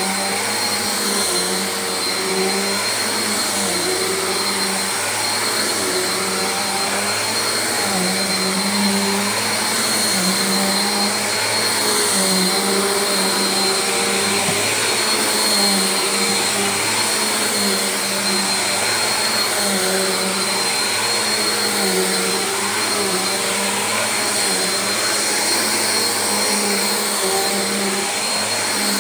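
Bissell upright vacuum cleaner running steadily as it is pushed over carpet: a continuous motor drone with a thin high whine over it.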